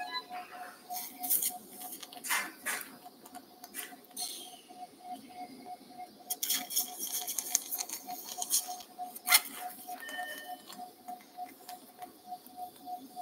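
Anaesthesia monitor beeping in time with the patient's pulse, a short steady beep about three times a second. Over it come scattered clicks and rustles of surgical instruments and drapes, with a louder click about two seconds in and again about nine seconds in.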